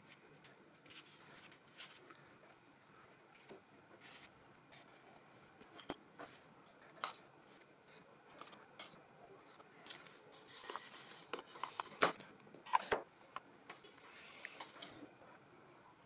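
Paintbrush stroking and dabbing paint onto paper, heard as soft swishes and scattered light taps, busiest and loudest about two-thirds of the way in.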